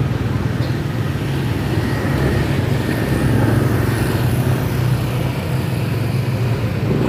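Steady rumble of road traffic, with an engine hum and a slight swell around the middle.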